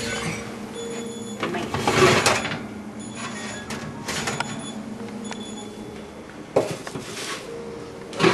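Oven door and wire rack being handled: a loud scraping rattle about two seconds in, then a few light knocks and one sharp clank later on, over a steady low hum.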